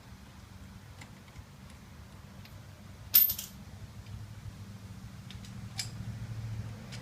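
Metal tools clinking: one sharp metallic clank with a brief high ring about three seconds in, and a few lighter clicks around it.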